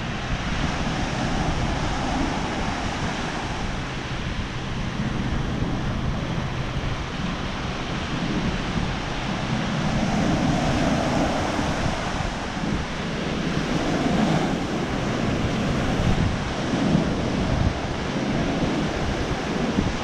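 Small surf breaking and washing up a sandy beach, swelling and easing with each wave, with wind buffeting the microphone.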